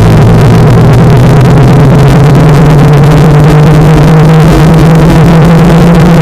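Lenovo K8 phone ringtone pushed into heavy distortion at full loudness: a steady, clipped electronic drone with a strong low hum and harsh noise over every pitch, a deliberately ear-splitting version of the ringtone.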